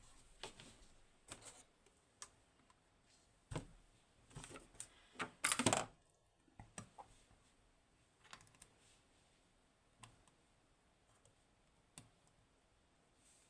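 Lock picks working in a Hori Trident high-pin-count lock: scattered light metallic clicks and scrapes of the pick and tension tool, with the loudest cluster about five and a half seconds in.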